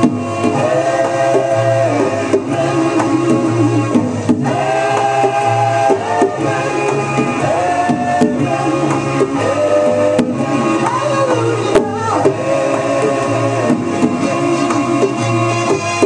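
Recorded song playing: a singing voice holding melodic notes over a steady beat and a repeating bass line.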